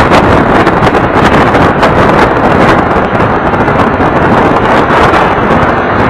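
Wind buffeting the microphone of a bass boat running at speed, over the steady rush of its Mercury 150 outboard and the hull on the water.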